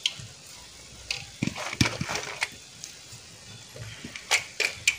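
Scattered clinks and taps of a metal spoon and utensils against a steel cooking pot, a handful of short sharp knocks with a little cluster near the end.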